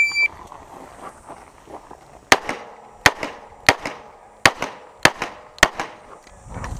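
A shot timer's beep at the start, then six handgun shots fired in a steady string about two-thirds of a second apart, beginning about two seconds later, each trailing a short echo.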